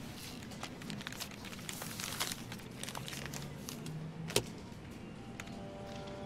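Light computer-keyboard clicks and rustling paper, with one sharper tap a little after four seconds in.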